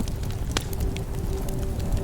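Wood bonfire crackling: scattered sharp pops over a low steady rumble of flames, with one louder pop about halfway through. A faint steady whistle runs underneath.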